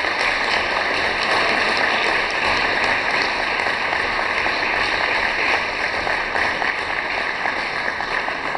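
Audience applauding: a steady crowd of clapping that eases slightly near the end.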